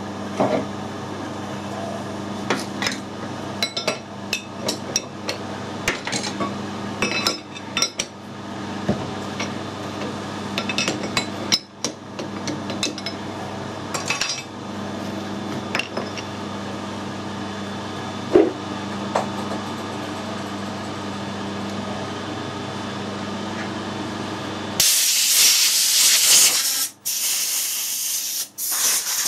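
Sharp metal knocks and clicks of a hammer and tools removing a collet chuck from a lathe spindle, over a steady low machine hum. About 25 seconds in, a compressed-air blow gun starts a loud hiss as it blows out the spindle nose, cutting off briefly twice.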